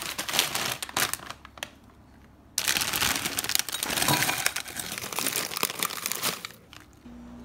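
Crinkly plastic frozen-food bag crackling as it is handled and tipped out into a bowl: a first spell of crackles, a short lull about two seconds in, then a longer, louder spell of dense crinkling. A steady low hum starts near the end.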